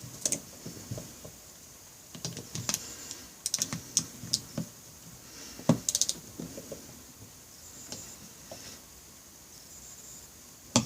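Irregular light clicks and taps of hand tools, a torque wrench and socket ratcheting on bolts, in scattered bunches that thin out in the second half.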